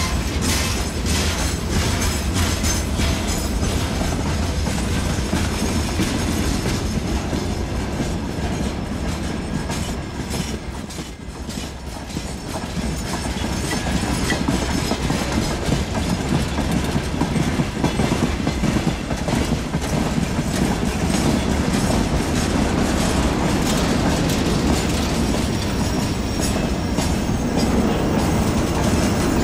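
Freight wagons of a long train rolling past close by, their steel wheels clicking over rail joints over a continuous rumble. The noise dips briefly about eleven seconds in.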